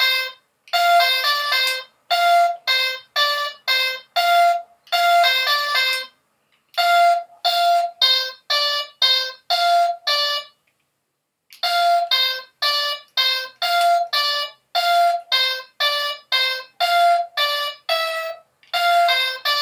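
Electronic handheld game toy's small speaker playing a rapid run of short beeping notes in a repeating tune, with two short breaks.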